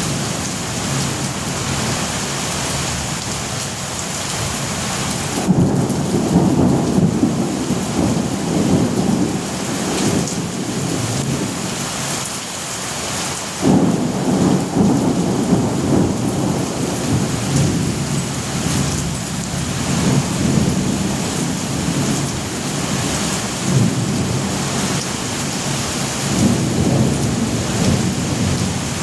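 Steady rain with rolling thunder. A rumble swells about five seconds in, and a sudden, louder clap breaks in about halfway through, followed by further rolling rumbles.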